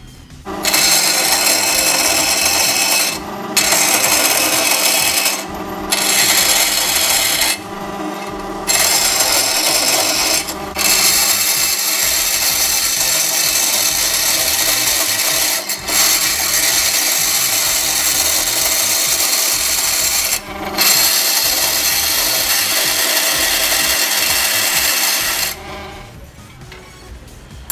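Vertical bandsaw cutting brass sheet: a loud, steady hiss of the blade through the metal over the saw's hum, breaking off briefly several times and stopping near the end.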